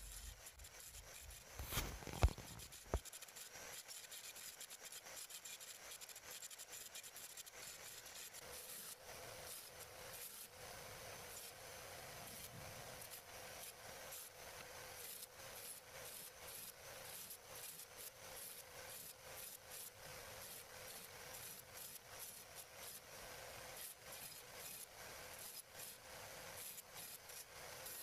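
Faint, rapid run of scraping strokes on sheesham and acacia wood perch sticks as they are rubbed smooth, with two sharp wooden knocks about two and three seconds in.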